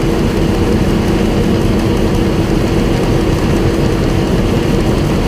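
Tractor engine running steadily, a loud, even drone with a constant hum.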